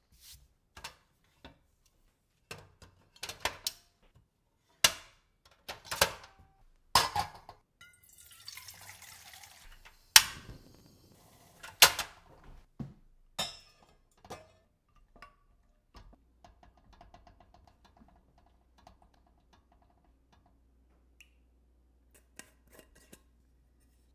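Kitchen handling sounds: a run of clicks and knocks of pieces and utensils against a glass bowl and a steel pot, with a short hiss about eight seconds in. Then water simmering in a pot on a portable gas stove: faint fine bubbling over a low steady hum.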